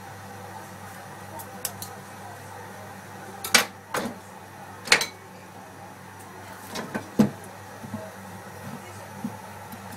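A carrot being peeled and handled over a plastic cutting board: a few faint clicks, then four sharp knocks over a few seconds, over a steady low hum.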